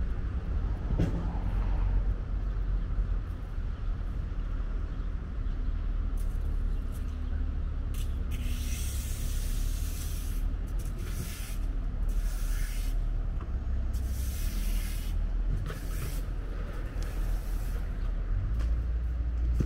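Outdoor city street ambience: a steady low rumble with several hissing rushes of a second or two each in the second half.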